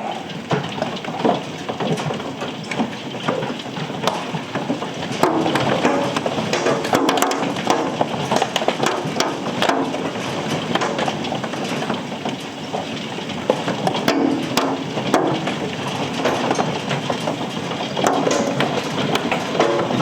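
Penny-sized hailstones pelting down in a thunderstorm: a dense, steady clatter of many small hard impacts.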